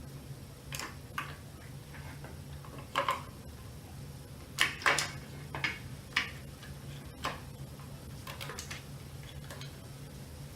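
Irregular small clicks and knocks of hands handling e-bike parts and plastic wiring connectors, the loudest a quick cluster about halfway through, over a steady low hum.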